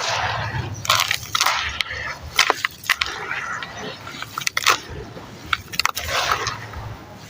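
Chunks of sand-and-cement crumbling and breaking apart in water, a run of crackling crunches and sharp snaps.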